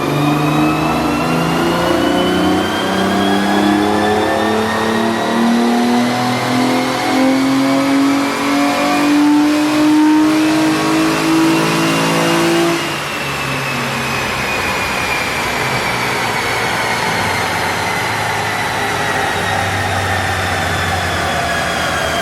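Turbocharged Hyundai 3.8 GDI V6 revving up under load in a dyno pull, its pitch climbing steadily for about 13 seconds. Then the throttle closes, the engine note drops, and a high whine falls slowly as it coasts down.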